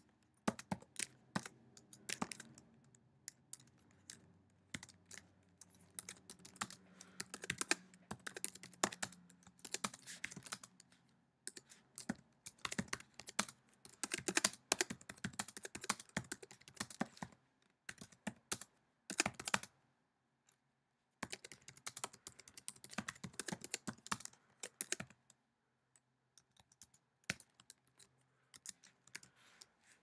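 Typing on a computer keyboard: quick runs of key clicks in bursts, broken by short pauses in the later part.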